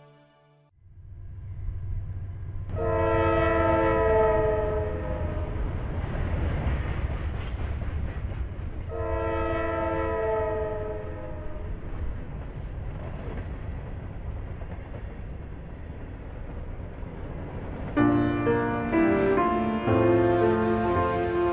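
Passenger train running with a steady low rumble, its horn sounding two long chord blasts a few seconds apart. Music with plucked or piano-like notes comes in near the end.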